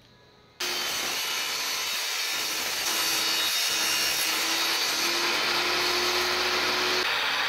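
Benchtop table saw running and ripping a thin wooden strip, a loud steady saw noise with a faint steady whine from the blade. It starts suddenly, under a second in.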